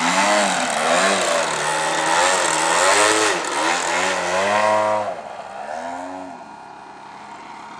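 Radio-controlled Extreme Flight Extra aerobatic plane's motor and propeller, its pitch swooping up and down over and over with throttle changes during low manoeuvres. The sound fades about five seconds in as the plane moves away.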